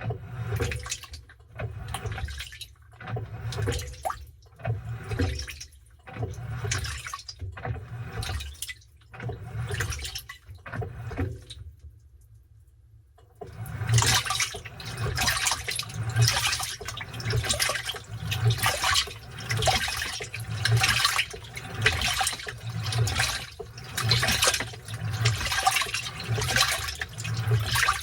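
Washing machine churning a load of towels in water: rhythmic sloshing and swishing about once a second. It pauses for about two seconds around halfway through, then starts again louder.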